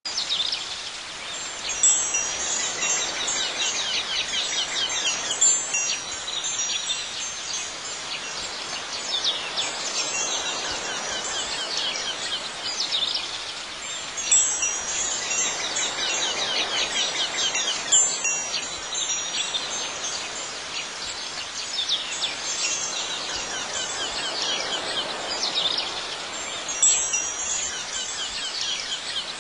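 Wind chimes tinkling continuously and high-pitched, with louder clusters of ringing strikes every few seconds.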